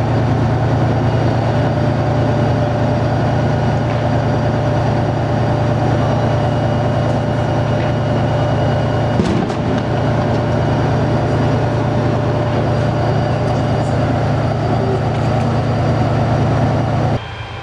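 Tank's diesel engine running steadily at idle close by: an even, deep pulsing rumble with a thin steady whine above it.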